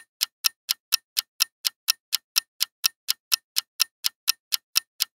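Countdown-timer sound effect: a clock ticking fast and evenly, about four ticks a second, counting down the time to answer a quiz question.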